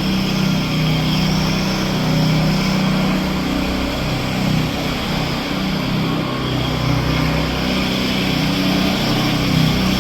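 Husqvarna Soff-Cut 150 concrete saw's small engine running steadily, its pitch wavering slightly.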